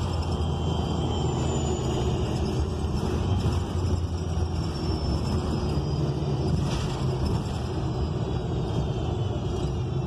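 Cabin sound of a 2019 ENC Axess city bus on the move, HVAC off: its Cummins Westport L9N natural-gas engine and drivetrain give a steady low rumble under road noise. A faint high whine drifts slightly lower in pitch through the middle.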